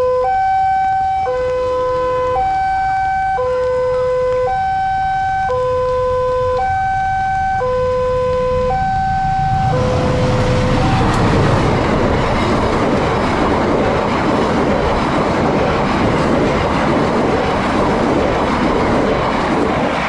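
Railway level-crossing warning alarm sounding an alternating two-tone electronic signal, switching pitch about once a second. About ten seconds in, the loud rushing rumble of the KA Logawa passenger train passing over the crossing takes over and buries the alarm.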